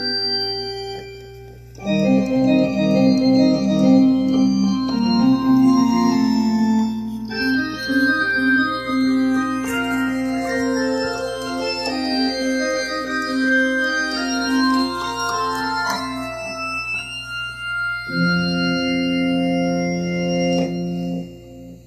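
Organ-style keyboard music playing sustained chords that change every second or two. It dips briefly about a second in, then swells back, and ends on a long held chord that stops just before the end.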